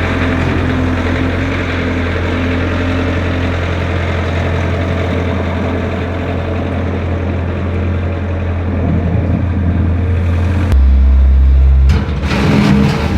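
A vehicle engine running steadily at a constant speed. The sound shifts abruptly about eleven seconds in, to a deeper, louder tone, and shifts again a second later.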